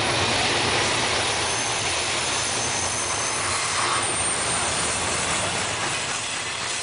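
Double-stack intermodal train's container well cars rolling past: a steady rumble and rush of steel wheels on rail, with faint high wheel squeals now and then.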